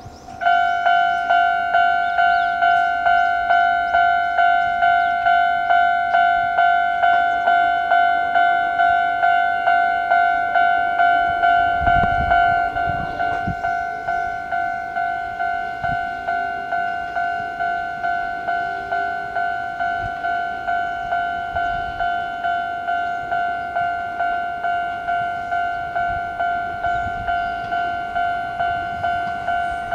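Japanese railway level-crossing warning bell starting to ring about half a second in, then sounding its electronic clang about one and a half times a second, signalling an approaching train. It drops slightly in loudness about twelve seconds in, with a brief low rumble at about that point.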